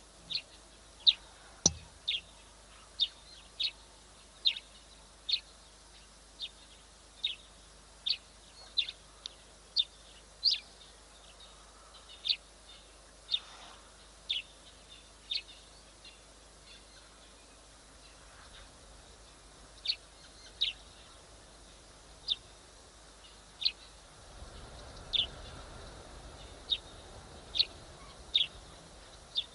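Short, sharp high-pitched chirps repeating about once or twice a second, with a pause of a few seconds just past the middle.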